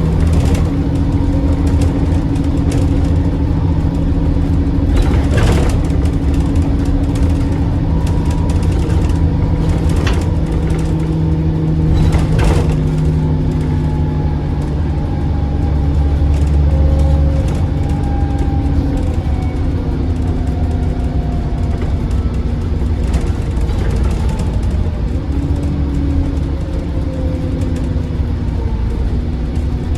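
Diesel bus engine running under load, its pitch rising and falling as it pulls away and changes gear, with a faint turbo whistle gliding above it. A few sharp knocks and rattles come through, about five, ten and twelve seconds in.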